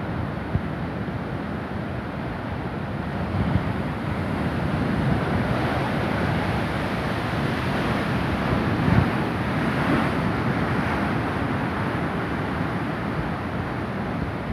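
Waves of a rough sea crashing and washing in, building to a louder surge a few seconds in before easing, with wind buffeting the microphone.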